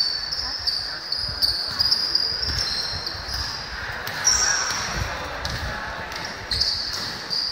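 Basketball bouncing on a court during play, a series of dull thumps, over a steady high-pitched trill in the background.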